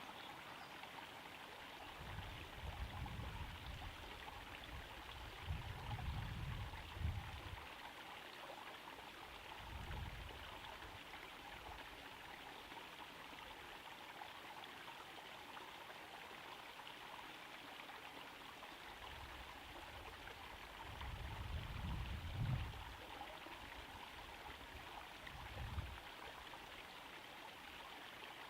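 Small garden pond waterfall trickling and splashing steadily into the pond. Several brief low rumbles come and go over the water sound.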